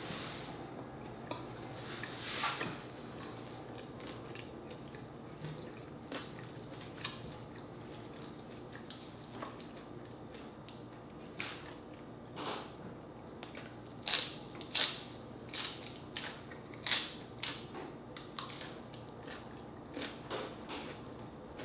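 Close-miked chewing of crispy deep-fried pork leg (crispy pata): irregular crunches and mouth clicks, sparse at first and coming more often in the second half.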